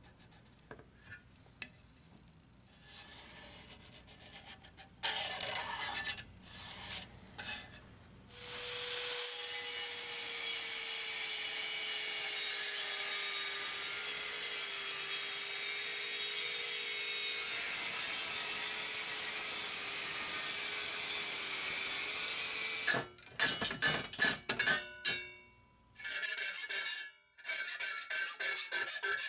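Angle grinder with a cut-off wheel slicing through a sheet-metal case: a steady, loud high grinding hiss over the motor's whine, which dips slightly in pitch, lasting about fourteen seconds. After it stops come a few short knocks, then a steady scraping near the end.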